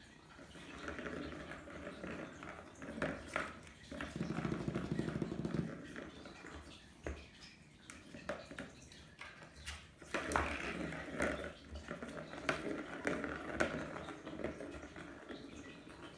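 Kittens playing on a wooden floor around a cardboard scratcher toy: scattered taps, knocks and scuffles throughout. About four seconds in there is a steadier, low, finely pulsing sound lasting about a second and a half.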